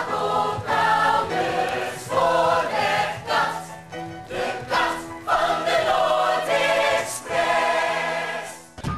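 A group of voices singing a musical-theatre number together in harmony over a held low note. It breaks off abruptly near the end.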